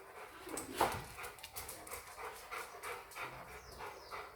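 English bulldogs panting in quick, fairly even breaths, with one brief louder sound about a second in.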